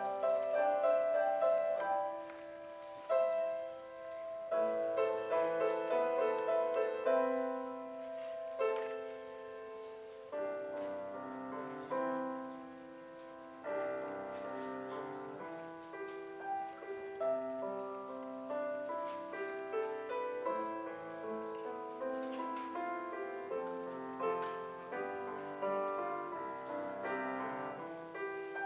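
Steinway & Sons grand piano played solo: a continuous run of notes ringing into one another.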